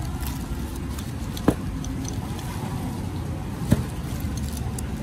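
Bubble-wrapped parcel being handled and cut open with a utility knife: light crinkling of plastic wrap and two sharp clicks about two seconds apart, over a steady low rumble.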